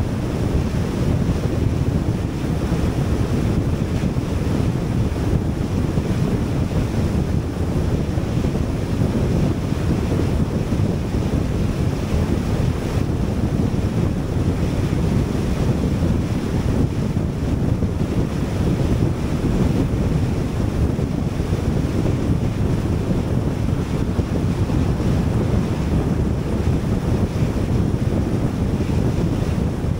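Steady low rushing of wind and road noise from a car driving on an expressway at speed.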